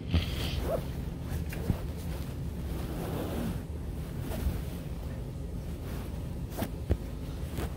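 Steady low rumble of noise on the microphone, with a few sharp clicks scattered through it.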